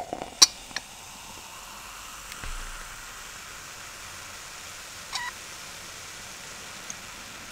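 Cola poured from a can into a tall glass, fizzing with a steady hiss as the glass fills and foams. A few sharp clicks in the first second and a brief squeak about five seconds in.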